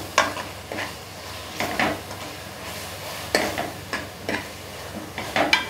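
Steel ladle scraping and knocking against the sides and bottom of an aluminium pressure cooker as an onion-tomato spice masala is stirred while it fries, with a faint sizzle underneath. The scrapes come irregularly, several over a few seconds.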